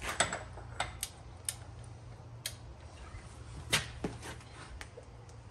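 Several sharp metallic clicks and taps at irregular intervals, the loudest nearly four seconds in, as a wrench and socket are fitted onto a rear axle nut and worked through the wheel's centre.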